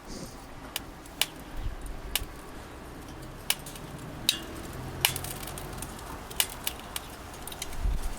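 Firewood crackling in a wood stove: sharp, irregular cracks about a second apart over a faint low rumble.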